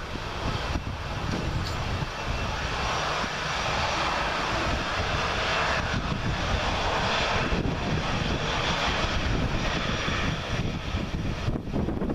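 Airbus A320 jet engines running at taxi power as the airliner turns onto the runway ahead of take-off: a steady low rumble with a broad hiss, swelling a little in the middle.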